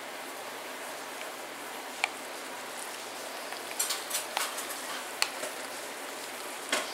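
A metal fork clinking and scraping against a glass mixing bowl as thick egg salad is stirred: a few sharp clicks spread out, with a small cluster around the middle, over a steady background hiss.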